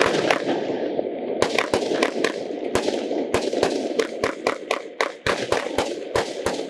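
WECO 'Rockstar' firework battery (cake) firing, a rapid, irregular series of sharp bangs from shots and bursts, about three a second.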